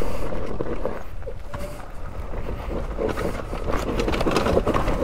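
Trail motorcycle creeping down a steep, slippery dirt descent with the rear wheel dragging: tyres sliding and crunching over loose stones, with many small irregular knocks over the low sound of the engine.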